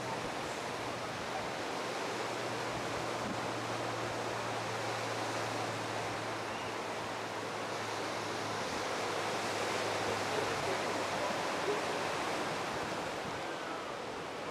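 Steady wash of ocean surf, an even noisy hiss with no distinct breaks, over a faint low hum that fades out about two-thirds of the way through.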